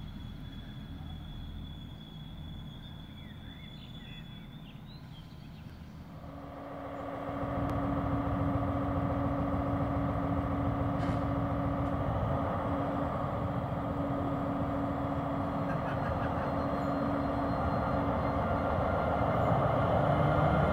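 A faint, distant diesel railcar rumble for about six seconds, then a Pesa Gama SU160 diesel locomotive hauling passenger coaches passes close at low speed. Its engine gives a steady drone with a held tone over it, slowly growing louder.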